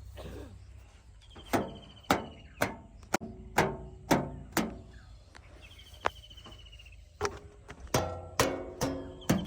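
Background music of plucked, quickly decaying notes at about two a second. The notes begin about one and a half seconds in, pause briefly in the middle, then resume.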